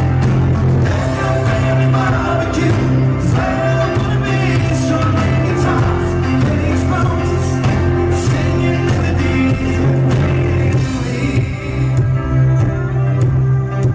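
Live rock band playing loud: drums, bass, acoustic guitar and fiddle, with a man singing lead into a microphone.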